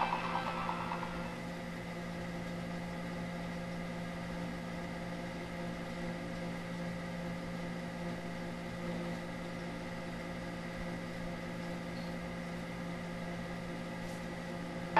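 A steady hum with a strong low tone and a few fainter steady tones above it, unchanging throughout. The tail of a louder sound fades out about a second in.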